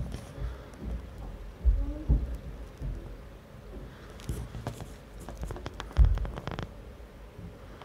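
Handling noise from a hand-held phone: low bumps, the loudest about six seconds in, and a run of small clicks and rustles in the latter half.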